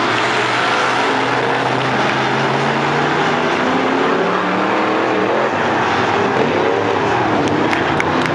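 A field of dirt-track Sportsman-class stock cars racing, a loud steady mass of engine noise with several engine pitches sliding up and down as the cars pass through the turn. A few sharp clicks come near the end.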